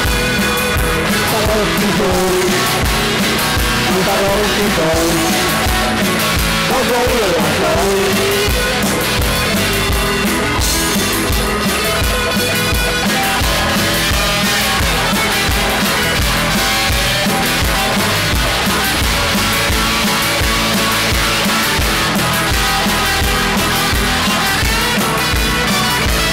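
A live rock band playing a song on electronic drum kit, electric guitar and keyboards, with a woman singing lead for roughly the first eight seconds, then the band carrying on without vocals.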